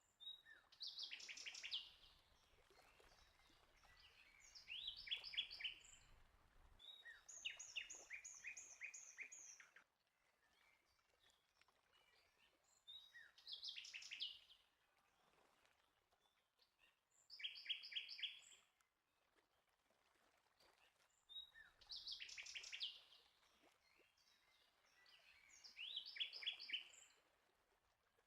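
A songbird singing: seven short phrases of fast, high repeated notes, about one every four seconds, with quiet gaps between.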